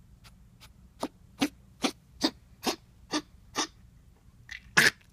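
A 12-week-old Jack Russell Terrier puppy coughing in a fit while settling to sleep: seven short coughs about two a second, then a weaker cough and the loudest one close together near the end.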